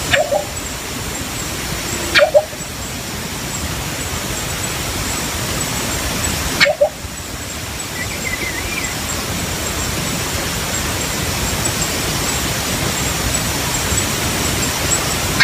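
Philippine coucal giving short, low two-note 'ku-kok' calls, three times in the first seven seconds, over a steady loud hiss.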